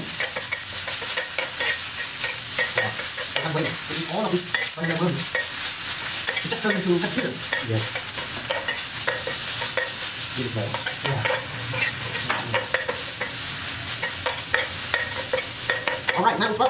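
Banana worms frying in hot oil in a small pan: a steady sizzle full of crackles, with the spatula stirring and scraping them around the pan throughout.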